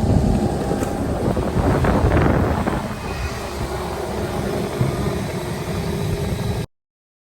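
Long-reach excavator's diesel engine running under load with its hydraulics working, swelling louder for a moment about two seconds in. The sound cuts off abruptly near the end.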